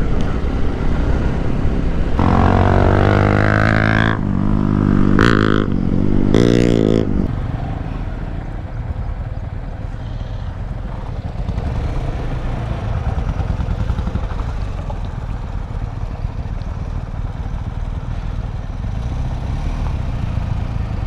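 Motorcycle engine revving loudly for about five seconds starting a couple of seconds in, its pitch climbing and dropping with the throttle, then settling into a steadier, lower engine running.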